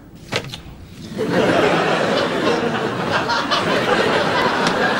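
Studio audience laughing, starting about a second in and carrying on steadily.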